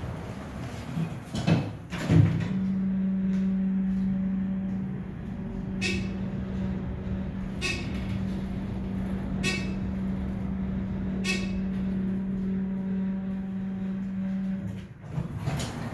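Dover traction elevator: the car doors close with two knocks about two seconds in, then a steady low hum runs while the car travels, with a short sharp click about every two seconds. The hum stops near the end as the car comes to a halt.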